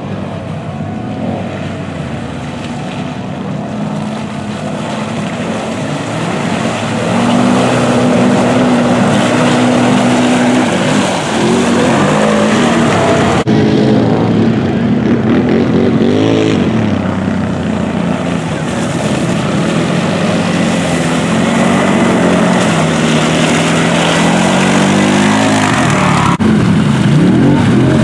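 Engines of a side-by-side UTV and 4x4 ATVs revving under load in a mud bog, the pitch rising and falling again and again as the throttle is worked. The sound gets louder about seven seconds in.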